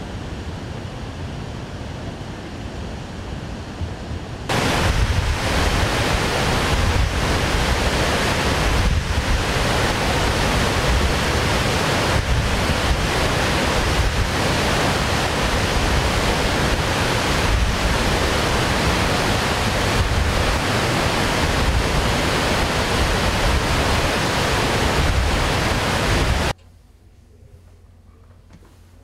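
Water rushing through the open spillway gates of the Lake Conroe dam during a flood release: a loud, steady roar of white water. Before it come about four seconds of softer steady wind noise, and near the end the sound cuts abruptly to quiet room tone.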